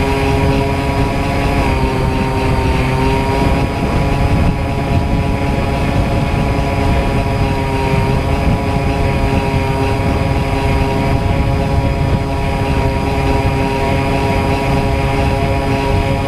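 RC plane's motor and propeller heard from on board, a steady multi-toned whine that dips slightly in pitch a couple of times, over a rush of wind noise.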